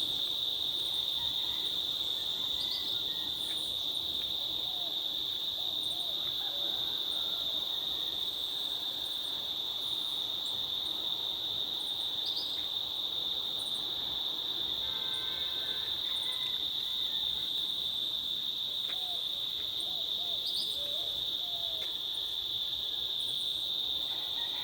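Cicadas, locally called June bugs, droning in a steady, unbroken high-pitched chorus. A few faint short calls sound in the background.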